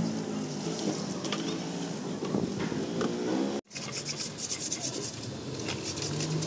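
Scraping and rubbing of a hand tool and fingers working inside a detached radiator tank, cleaning it out in short strokes. A passing vehicle's engine fades away in the first few seconds, and the sound cuts out for a moment just past halfway.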